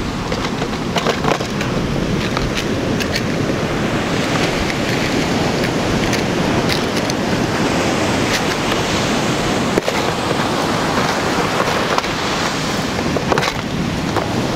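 Surf breaking and washing on a beach, a steady loud rush, with scattered small clicks from fishing tackle being handled close by.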